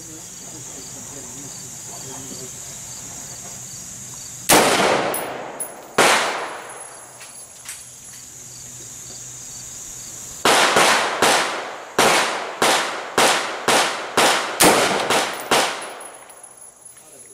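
Semi-automatic fire from a DPMS Oracle AR-15 in 5.56/.223: two shots about a second and a half apart, then after a pause a quick string of about ten shots roughly two a second, each followed by a short ringing echo.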